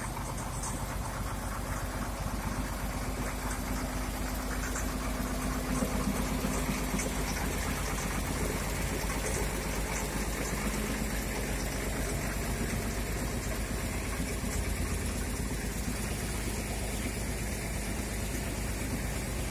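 A truck-mounted crane's diesel engine running steadily with an even clatter while the crane holds a suspended steel tank, growing a little louder for a moment about six seconds in.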